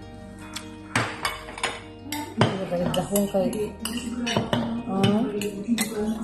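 Cutlery clinking and scraping on a white ceramic plate, a series of sharp taps.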